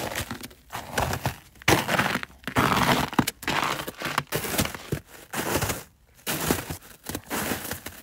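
Footsteps crunching through snow at a steady walking pace, a crunch every second or so.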